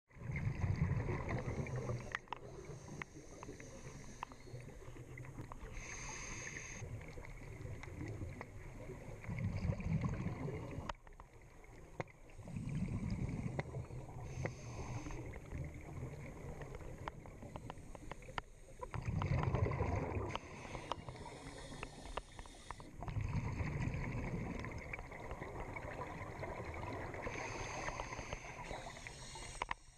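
Scuba breathing heard underwater through a camera housing: a regulator hiss on each inhale and a louder low rumble of exhaled bubbles, repeating every few seconds.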